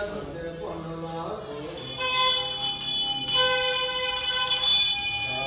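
Background music with bright, ringing bell tones that come in suddenly about two seconds in and keep sounding.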